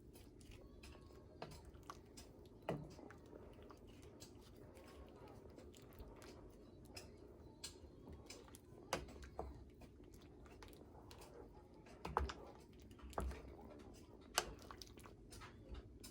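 Scattered light clicks and knocks at irregular intervals over a faint steady low hum, a few of them sharper and louder.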